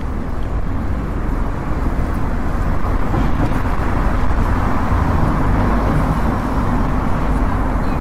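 Steady city street traffic noise with a deep low rumble.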